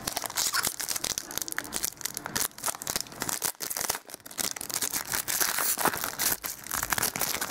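Foil wrapper of a football trading-card pack being torn open and crumpled by hand: a dense, continuous crinkling and crackling.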